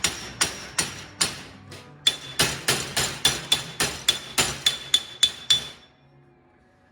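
A hammer striking metal in a steady run of blows, about three a second, the later blows ringing with a high metallic note. The hammering stops about five and a half seconds in.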